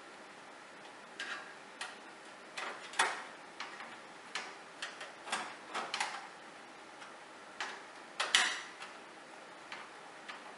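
Screwdriver driving the screws that hold a video card's metal bracket to a computer case: irregular small metallic clicks and taps, the loudest about three and eight seconds in.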